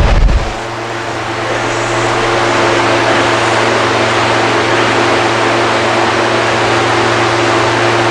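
Loud, steady drone of a running motor-driven machine, an even rushing noise over a low hum, after a few low bumps from the camera being handled at the very start.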